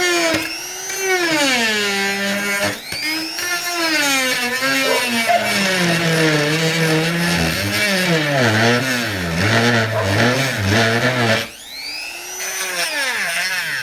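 Rotary tool with a grinding bit cutting into PVC pipe: a steady motor whine that sags in pitch as the bit bites into the plastic and climbs again as the pressure eases. It loads down most heavily about eight to eleven seconds in, then lightens near the end.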